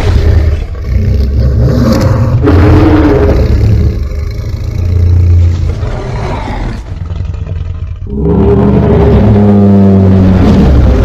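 Loud, deep creature roars and growls, a monster sound effect, easing off for a moment about three-quarters of the way through before a fresh roar.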